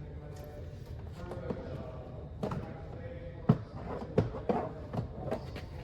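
Several sharp knocks and clatters, the loudest about three and a half seconds in, over a steady low hum.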